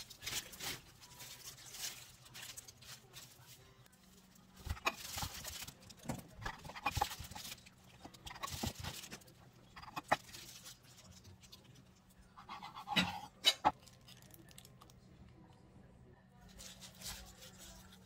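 Kitchen work on a wooden cutting board: soft scraping as egg salad is spread on bread slices with a wooden spoon, then a knife cutting through bread with a few sharp knocks on the board about two-thirds of the way through. A faint steady hum runs underneath.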